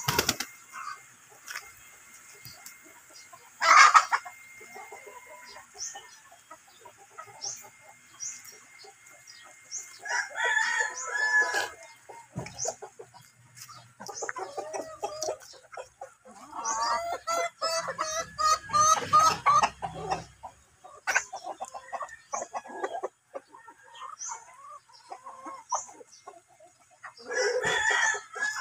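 Chickens clucking and calling, with a rooster crowing at intervals and the longest run of calls about two-thirds of the way through. A single short, sharp, loud sound about four seconds in stands out above the rest.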